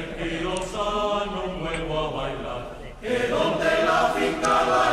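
Choral vocal music: several voices singing long held notes, growing louder about three seconds in.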